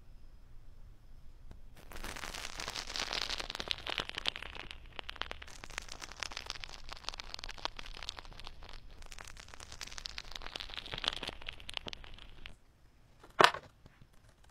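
Fingers poking and squishing fluffy blue cloud slime in its jar: dense, fine crackling for about ten seconds as air pockets pop. Near the end there is a single sharp, loud pop.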